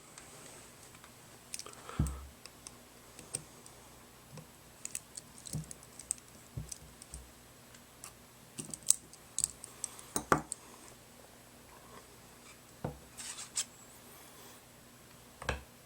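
Scattered light clicks, taps and scrapes of a plastic Lego-style lightsaber hilt and acrylic blade being handled, with a few sharper knocks about two seconds in, around ten seconds in and near the end.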